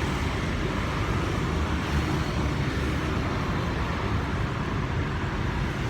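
Steady low background rumble with no distinct events, of the kind heard from distant road traffic.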